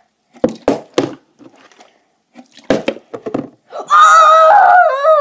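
A plastic water bottle knocking down hard a few times in quick succession, then a loud drawn-out yell from a boy starting about four seconds in.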